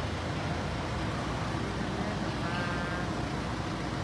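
Steady low rumble of an underground car park, with a brief high squeak about two and a half seconds in.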